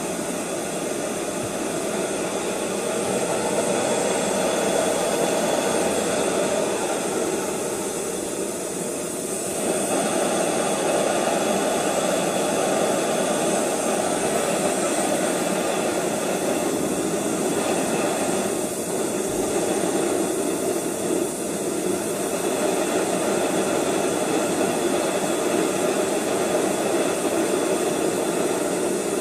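BRS-3000T canister gas stove burning steadily under a pot: an even, loud hiss, dipping slightly twice. This burner is noisy and its top is glowing, which the owner suspects is a sign that something is wrong with it.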